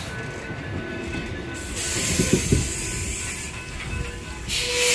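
Amtrak Superliner double-deck passenger cars rolling past on the rails as the train pulls out, with steady wheel rumble and bursts of hiss, the loudest near the end.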